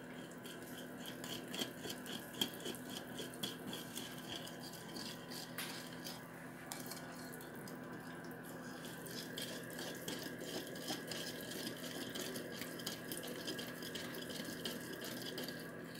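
Wire whisk beating a runny cake batter of orange juice, oil and cornmeal by hand in a glass bowl: a faint, quick rhythmic swishing with small clicks of the wires.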